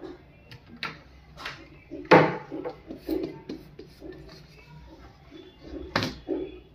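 Kitchen jars and containers being taken from a shelf and handled: a series of sharp knocks and clatters, the loudest about two seconds in and another near the end.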